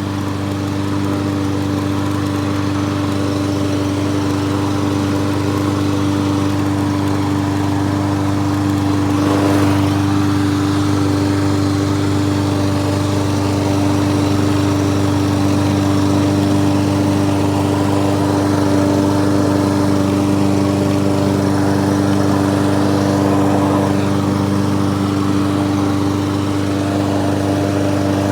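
Briggs and Stratton engine on a walk-behind lawnmower running at a steady speed, an even drone that holds one pitch throughout.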